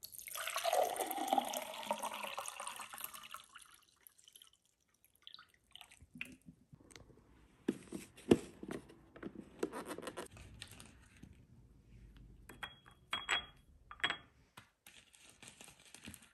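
Water poured from a pitcher into a glass tumbler, splashing and filling for about three seconds. Then a clear plastic clamshell tub crackles and clicks as it is handled, and near the end a few light clinks ring on a small ceramic bowl as dates are set in it.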